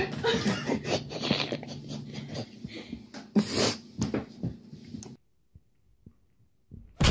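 A kitten's paws thumping and skittering on a hard floor as it hops about, over a low hum for the first couple of seconds. The sound drops out for about a second and a half, then a sudden loud bump comes at the very end.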